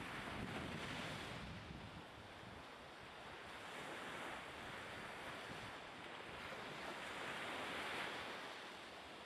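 Seaside wind and water: a steady rushing noise that swells and ebbs every few seconds, with wind buffeting the microphone near the start.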